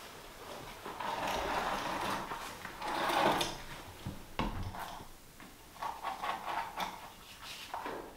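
Floor underlayment sheeting rustling and scraping as it is handled and trimmed with a utility knife. The noise swells twice, then there is a sharp knock and a few lighter clicks.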